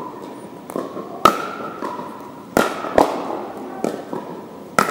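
Pickleball rally: paddles striking a hollow plastic ball, giving sharp pops at an uneven pace, four loud ones and several softer, each ringing in the echo of a large gym.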